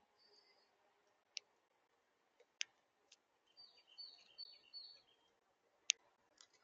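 Songbirds at a backyard feeder: a few sharp, scattered clicks, and a quick run of about five high chirps partway through.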